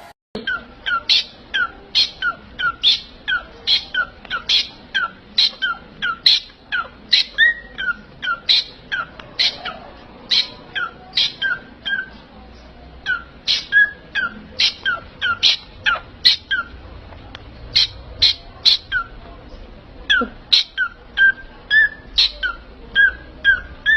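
A parrot calling over and over in short, sharp chirps, about two a second, each a quick high note over a lower one, with a short break midway.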